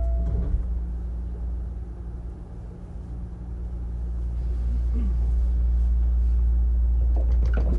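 Onboard running sound of a Hankyu 9000 series electric train with Toshiba IGBT inverter control pulling away from a station: a steady low rumble of wheels and motors that grows louder from a few seconds in. A few sharp clicks come near the end.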